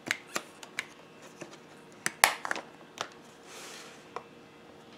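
Makeup items and tools being handled and set down on a table: a scattered series of small sharp clicks and knocks, the loudest a little past two seconds in, with a short soft rustle near the middle.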